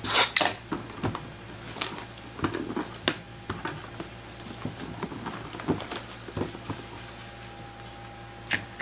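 Cardboard box being handled and set down: scattered soft taps, scrapes and rustles, with a few sharper clicks.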